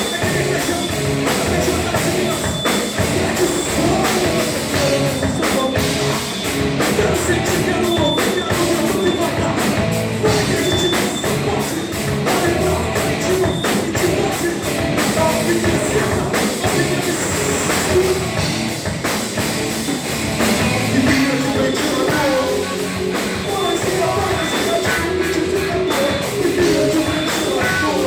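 Hardcore punk band playing live: distorted electric guitars, bass and drums, loud and continuous.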